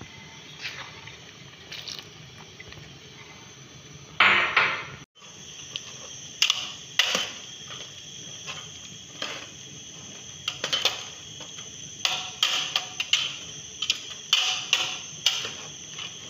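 Metal spoon stirring beans and onions in a stainless steel pot, scraping and clinking against the pot many times at an irregular pace over a steady hiss. A louder rush of noise comes about four seconds in.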